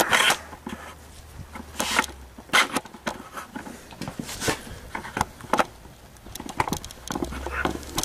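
Handling noise from a hand-held camera being set down: scattered rustles, scrapes and light clicks.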